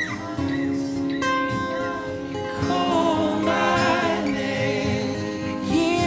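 Worship music: a voice singing over acoustic guitar, swelling louder about two and a half seconds in.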